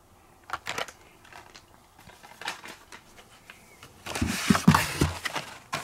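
Plastic-blister Hot Wheels cards being handled and pulled out of a cardboard shipping case: a few sharp clicks under a second in, then, about four seconds in, louder rustling and scraping of card and plastic with small knocks as the next cards are grabbed.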